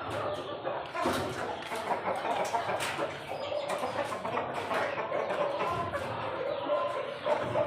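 Aseel chickens clucking continually as they feed, over many short, sharp clicks.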